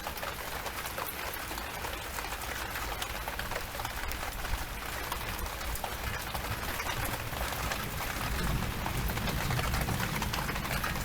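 Steady thunderstorm downpour, with many individual raindrop hits close to the microphone. A low rumble builds up about eight seconds in.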